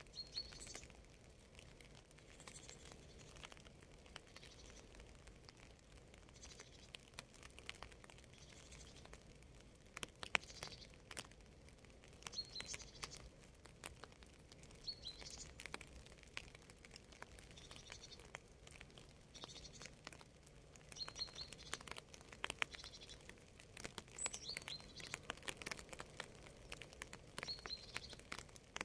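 Rain falling in scattered drops, heard as irregular pattering and dripping, with a small bird repeating a short high chirp every two to three seconds.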